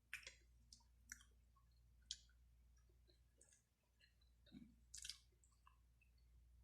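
Faint eating sounds: short mouth clicks and smacks of someone chewing food, scattered through near silence.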